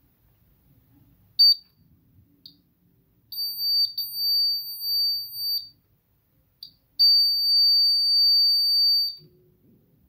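Small battery-powered electronic buzzer of a homemade water-level alarm sounding a high, steady tone in spurts as its circuit is made and broken. There is a short beep about a second and a half in, then a tone of about two seconds with a brief break in it, and after a pause another steady tone of about two seconds.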